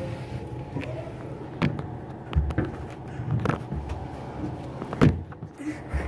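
Hands, knees and the handheld phone bumping and scraping on the wooden plank floor and walls of a crawl-through maze: a run of knocks and dull thumps, the loudest about five seconds in.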